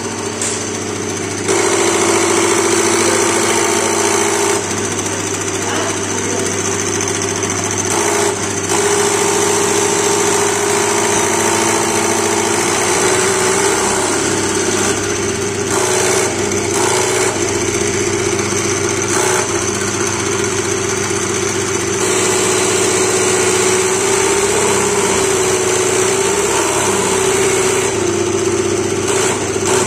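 Diesel fuel injection pump test bench running, driving an inline injection pump with a steady mechanical hum and whine. It gets louder about a second and a half in.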